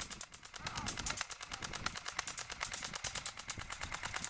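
M85 airsoft rifle firing on full auto: a rapid, even stream of shots, more than ten a second.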